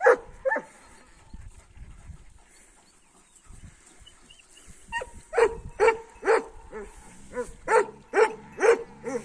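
Large Kangal-type shepherd dogs barking at strange dogs from another flock: a bark or two at the start, then after a pause a run of about ten loud barks, roughly two a second, from about five seconds in.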